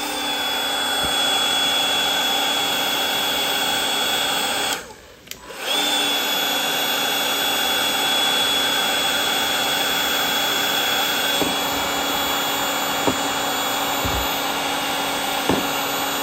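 Cordless heat gun running steadily, its fan giving a whir with a high whine, while shrinking heat-shrink sleeving over a soldered LED tape joint. About five seconds in it stops for a second and starts again with a brief rising whine.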